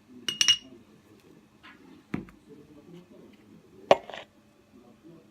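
Kitchen utensils being handled during food preparation, making a few separate sounds: a quick ringing clink near the start, a dull thump about two seconds in, and a sharp knock near four seconds.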